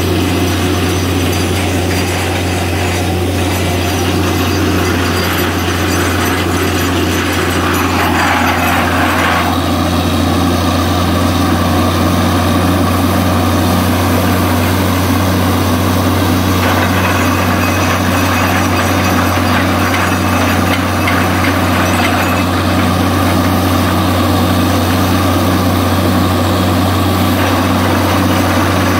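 A heavy engine running steadily with a strong low hum. A higher rushing sound joins it twice, each time for about five to seven seconds.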